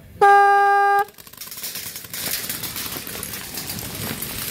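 A horn sounds once, a steady, loud tone just under a second long that cuts off sharply. After it comes a rising clatter of rustling and rapid clicks.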